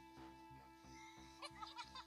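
Faint background music with a steady beat.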